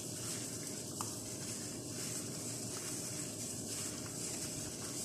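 Gloved hand squishing and mixing chicken breast pieces in a wet marinade in a glass bowl, with a few soft clicks, over a steady background hiss.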